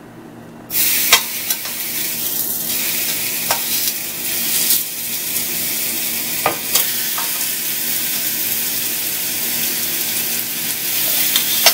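Raw marinated chicken breast fillets sizzling as they are laid on a hot, oiled ridged grill pan. The sizzle starts suddenly just under a second in and runs on steadily, with a few sharp clicks of metal tongs against the pan.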